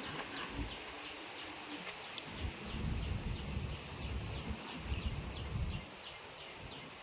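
A steady run of short, high chirps that fall in pitch, about three a second, from a small animal. A low rumble comes in between about two and a half and six seconds in.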